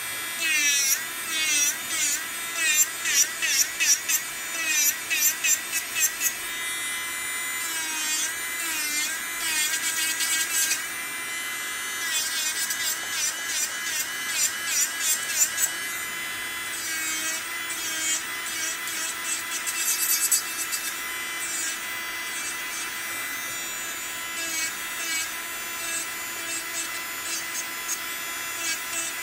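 Electric nail file (e-file) running at 35,000 RPM, its small motor giving a steady high whine as a white bit files the coating off fingernails in short repeated passes. The whine wavers and grinds each time the bit meets the nail, most busily in the first few seconds and again around the middle.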